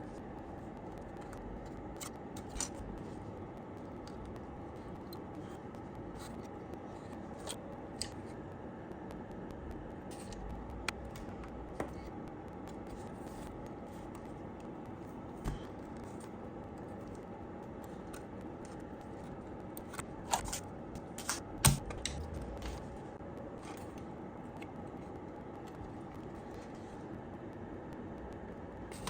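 Scattered light clicks and taps of hand work at a bench, with a few sharper knocks about twenty seconds in, over a steady low background hum.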